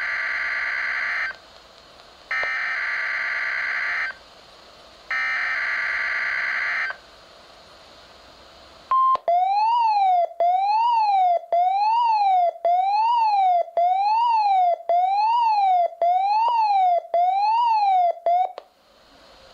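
NOAA Weather Radio SAME digital header sent three times as harsh data screeches, followed about nine seconds in by a short beep and then a loud siren-like alert tone that sweeps up and down about once a second for roughly ten seconds. This is the alert tone sequence of a Required Weekly Test.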